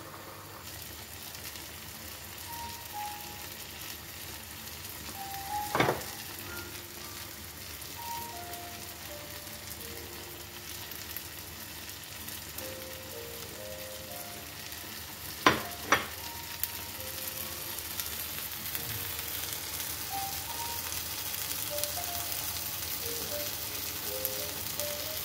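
Eggs, chopped peppers and tomatoes sizzling steadily in a frying pan, the sizzle growing stronger in the second half. Sharp knocks stand out once about a quarter of the way in and twice in quick succession past the middle, over soft background music notes.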